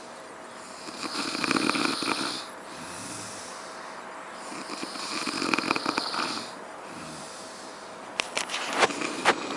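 A person snoring: two long, rasping snores about four seconds apart, with a run of sharp clicks near the end.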